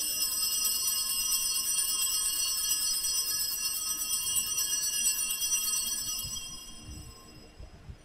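Altar bells (a cluster of small Sanctus bells) shaken in a rapid, continuous jingle for about six seconds, then fading away, rung at the elevation of the chalice after the words of consecration.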